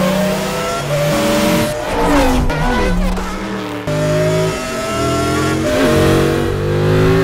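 Several race car engines revving hard as the cars race past, their pitch climbing and dropping back again and again with each gear change.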